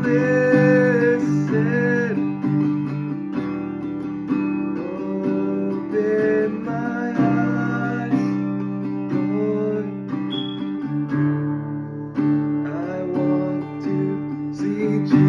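Acoustic guitar music, plucked and strummed, with gliding melody notes over it. A short high beep sounds once about ten seconds in.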